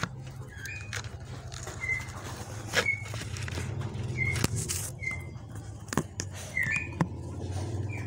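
Close handling noise of a zebra dove (merbuk) held in the hands against the microphone: rustles, sharp knocks and a few wing flaps. Short high chirps from a bird come every second or so, over a steady low hum.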